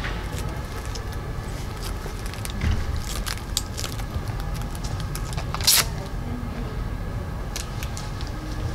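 Steady low outdoor rumble with scattered light clicks as a bar-end mirror is fitted by hand, and one sharper click a little past halfway.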